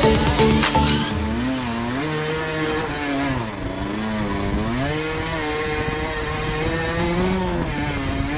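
Small 50cc enduro motorcycle engine running while riding, its revs rising and falling several times as the throttle is worked.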